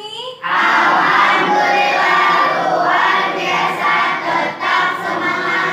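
A class of schoolchildren speaking together in unison, a long chanted group reply that begins about half a second in.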